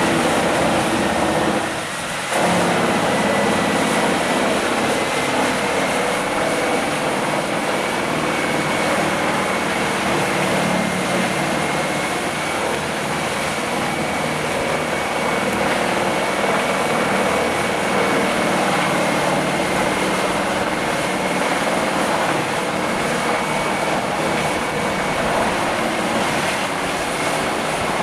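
Wood chipper running at full speed: a loud, steady engine and rotor whine that dips briefly about two seconds in.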